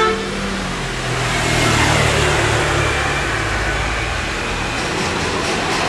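Road traffic: a motor vehicle's engine running close by, getting louder about a second in and then holding steady, with tyre hiss on the wet road.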